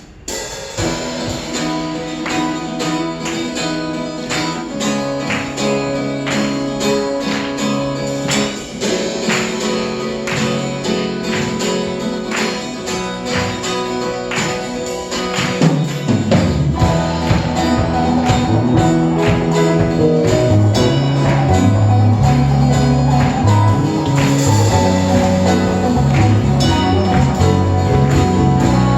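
Live worship band playing an instrumental interlude: rhythmic guitar strumming with percussion, then the bass and full band come in about halfway and it gets louder.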